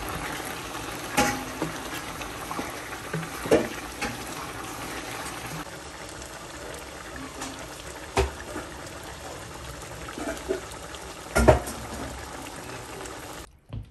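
Mutton curry simmering in a pan, a steady bubbling with a few sharp knocks. The sound cuts off just before the end.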